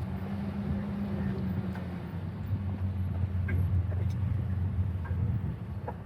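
High-mileage pickup truck's engine running at low revs as it crawls over rough rock, a steady low drone that grows louder a couple of seconds in, with a few faint clicks.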